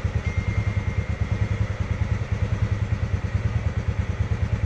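Polaris Sportsman 600's twin-cylinder engine running with a fast, even pulsing. It is on badly low compression: one cylinder measures 120 psi and the other 30.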